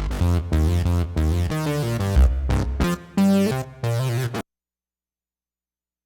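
Electronic beat played on an Akai MPC: synth chords over a heavy bass line, cutting off suddenly about four and a half seconds in.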